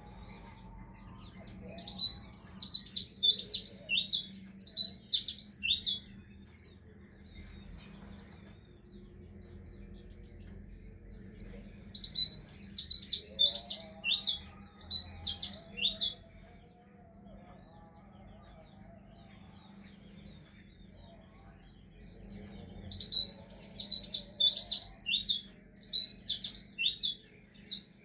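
White-eye (pleci) song: three bouts of rapid, high twittering, each about five seconds long, separated by pauses of about five seconds.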